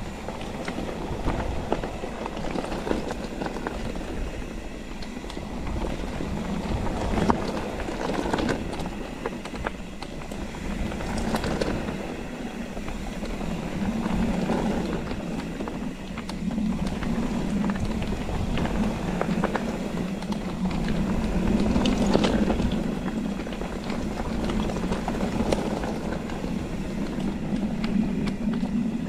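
Mountain bike being ridden over a rough trail: continuous tyre noise with frequent small rattles and knocks from the bike over bumps, and a steadier low hum joining in from about halfway.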